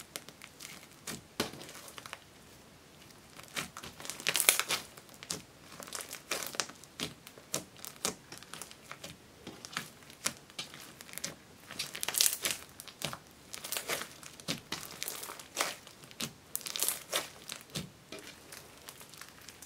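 Hands kneading, stretching and folding fluffy slime, giving irregular sticky crackles and pops. The crackling comes in louder flurries about a quarter of the way in, a little past the middle, and near the end.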